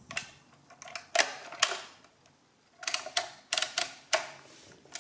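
Original-Odhner model 24 pinwheel calculator being worked by hand, giving sharp metallic clicks. A few come in the first two seconds as the crank is handled, then a quick run of clicks between about three and four seconds in as the carriage is stepped along.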